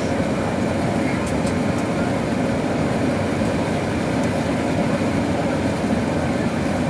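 Steady cabin noise of an Airbus A380-861 on descent, the roar of its Engine Alliance GP7200 engines and the airflow over the fuselage, heard from a window seat, with a steady hum beneath it.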